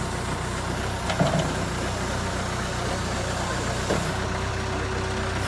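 Diesel engine of a JCB 3CX backhoe loader running steadily at idle, with two short clunks, one about a second in and one near four seconds.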